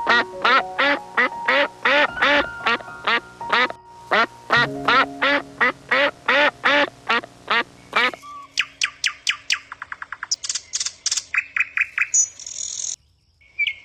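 Short animal-like calls repeated about three times a second over background music with held notes. After about eight seconds they give way to faster, higher chirping calls, which stop briefly just before the end.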